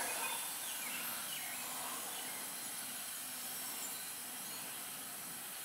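Faint steady outdoor background noise with a few faint high chirps in the first couple of seconds; no tool or machine sound stands out.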